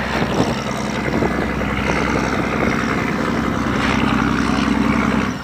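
A boat's engine running at a steady pitch, with wind rushing over the microphone; the engine sound cuts off suddenly near the end.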